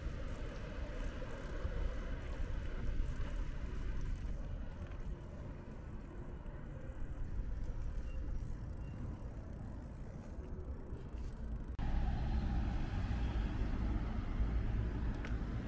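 Street ambience with road traffic going by, mostly a low rumble of cars. About twelve seconds in the sound changes abruptly and gets louder.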